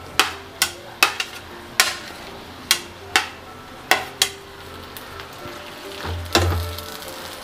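A plastic spoon knocking sharply against a plate and pan as jujube berries are pushed off the plate into hot jaggery syrup, about two knocks a second, then a longer, louder scrape and stir in the pan about six seconds in.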